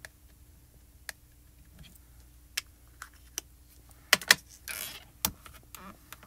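Light clicks and taps of an ink pad and clear stamp being handled, then two sharp plastic clacks about four seconds in as the acrylic lid of a stamp positioner is swung shut, followed by a brief scuff and another click as the lid is pressed down onto the paper.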